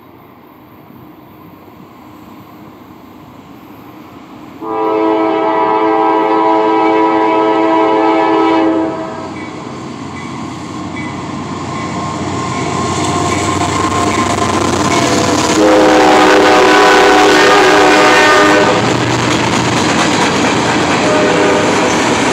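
Freight train of tank cars rolling past, a steady rumble that grows louder, while a locomotive air horn sounds a chord in two long blasts, the first about four seconds and the second about three, with a fainter third starting near the end.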